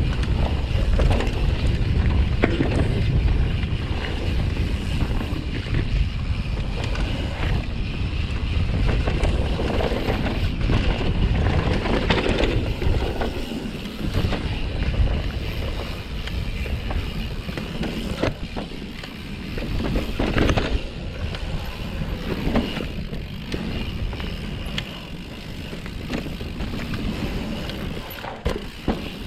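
Mountain bike riding down dirt singletrack, heard from a camera on the bike or rider: wind rumbling on the microphone over tyre noise, with scattered knocks and rattles from the bike over bumps. It is louder in the first half and eases off in the second half.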